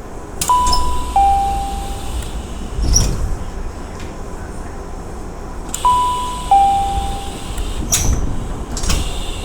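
Tokyu 5000 series train door chime, a two-note descending electronic chime sounding twice, about five seconds apart, over the steady rumble of the railcar. Heavy thumps follow each chime, the louder ones near the end.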